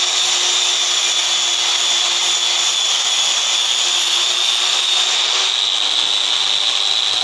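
Electric angle grinder with a sanding disc running steadily with a high whine, grinding the cut edge of a porcelain tile down to a thin 45-degree bevel. The grinding sound eases about five and a half seconds in as the disc comes off the tile, the motor still running.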